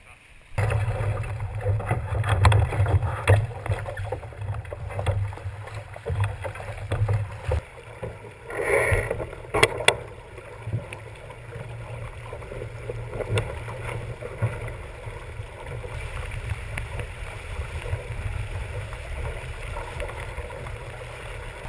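Wind buffeting an action camera's microphone and water rushing and slapping against the hull of a heeled sailing keelboat under way, with scattered sharp knocks.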